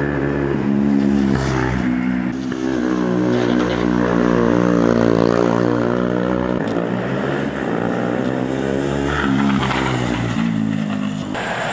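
Motorcycle engines running and revving as the bikes ride through a tight bend, with a car on the same road.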